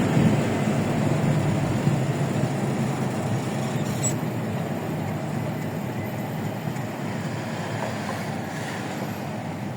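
Road and wind noise of a vehicle driving on an expressway, heard from inside, a steady rush that gradually gets quieter as it slows.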